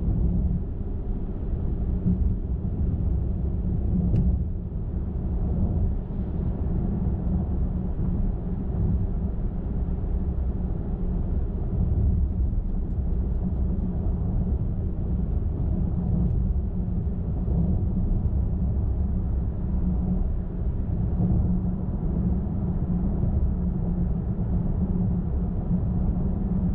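Car driving steadily at highway speed: a constant low rumble of engine and tyres on the road.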